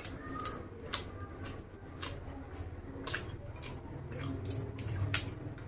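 Crisp snaps and crunches, roughly two a second and irregular, from raw vegetables and leaves being chewed and snapped apart by hand.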